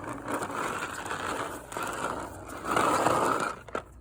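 Rough scraping noise in long stretches, with short breaks, loudest near the end: the grating sound the players call a disgraceful sound.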